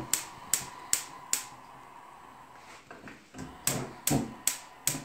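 Gas hob's spark igniter clicking as the burner is lit: a run of four sharp clicks, then a pause of about two seconds, then four more, about two and a half clicks a second.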